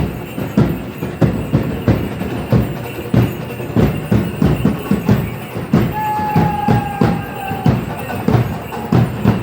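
Drums beating a steady dance rhythm, about two to three strikes a second. A held high whistle-like tone sounds for about a second and a half, about six seconds in.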